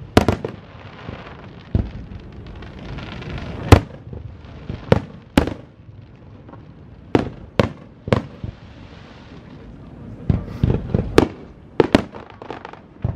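Aerial fireworks shells bursting in a string of sharp bangs, about a dozen, spaced a second or two apart at first and coming closer together in the last few seconds.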